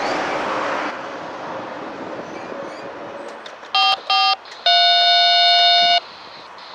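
The rush of the passing freight train fades away in the first second. About four seconds in come two short horn-like blasts, then a longer one lasting over a second, each on a steady pitch and each starting and stopping abruptly.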